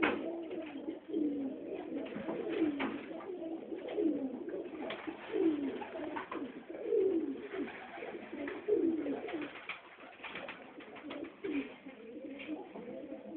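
A loft full of Budapest Highflyer pigeons cooing, many overlapping coos with no break, with scattered sharp clicks in among them.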